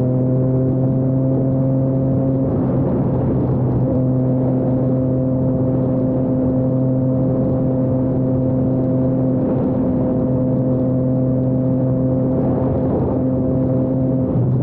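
Triumph Trident 660's inline three-cylinder engine, fitted with a Zard full exhaust system, cruising in sixth gear at highway speed and holding a steady pitch.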